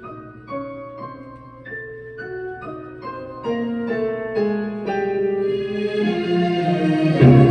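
Piano music: a slow melody of single notes, about two a second, growing louder and fuller near the end, played back through a homemade two-tube 6BM8 (6F3P) stereo valve amplifier.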